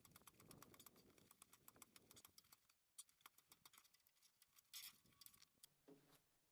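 Faint irregular clicking and tapping of a chisel chipping at ice and frozen sawdust, with a short louder scrape about five seconds in.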